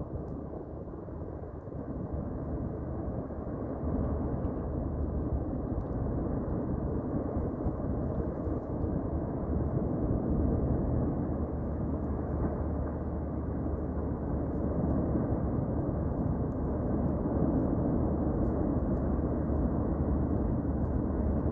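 Low, steady rumbling roar of an erupting volcanic vent throwing up lava fountains, growing louder a few seconds in.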